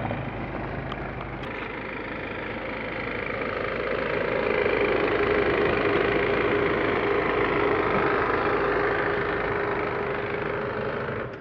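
Mercedes-Benz Sprinter van's engine running as the van is driven slowly into a parking spot nose-first, growing louder from about four seconds in as it comes close, with a steady hum, then fading near the end.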